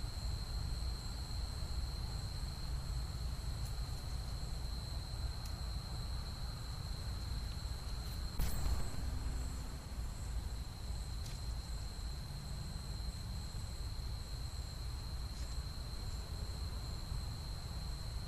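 Steady high-pitched trilling of night insects, unbroken, over a low steady rumble. A brief burst of noise comes about eight and a half seconds in.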